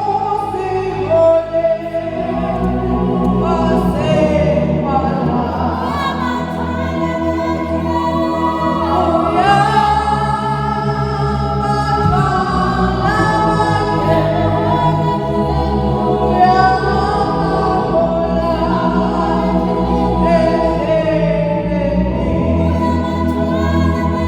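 Choir singing a gospel song in long held notes.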